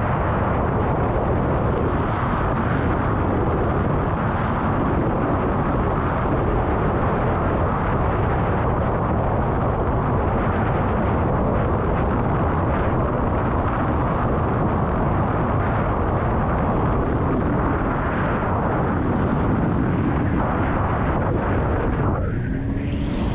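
Wind buffeting the microphone at speed, mixed with the 2003 Sea-Doo XP DI two-stroke twin running at high revs as it skims choppy water. Near the end the wind noise eases as it slows and the engine's steady drone comes through.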